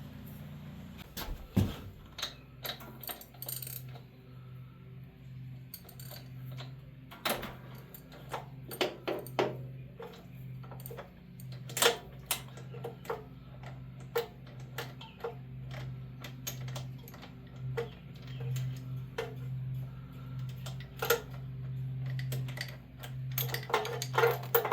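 Metal hand tools clinking and clicking at irregular moments as spark plugs are taken out of a generator's V-twin engine, over a steady low hum.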